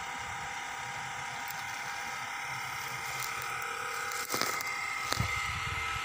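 A steady hum from a motor, with several faint steady tones in it, and a couple of light knocks about four and five seconds in.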